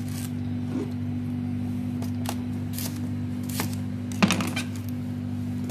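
Kitchen knife cutting a yellow bell pepper on a plastic cutting board: about half a dozen separate sharp taps of the blade, the loudest about four seconds in, over a steady low hum.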